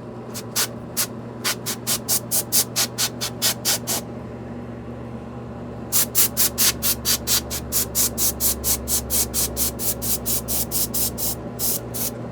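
Compressed air blown in rapid short puffs, about four a second, to clear dust out of a keyboard's speaker grille, with a pause of about two seconds in the middle. A steady low hum runs underneath.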